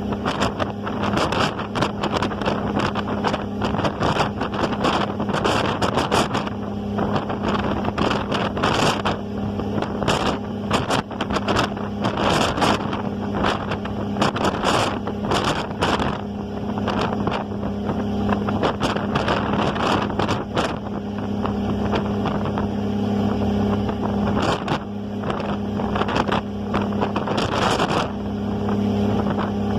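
A ferry's engine humming steadily, with wind buffeting the microphone in frequent gusts.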